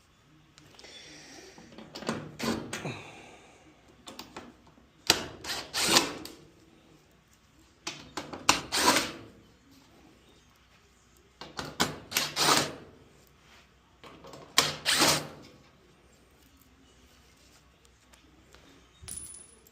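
Screws being backed out of a Kenmore dryer's sheet-metal panel with a Phillips screwdriver, in five short bursts a few seconds apart.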